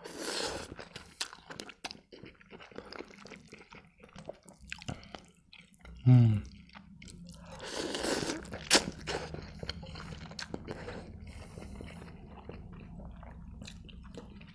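Close-miked eating: instant noodles slurped off chopsticks twice, at the start and again about eight seconds in, with wet chewing and smacking clicks in between. About six seconds in there is a short, loud vocal hum from the eater.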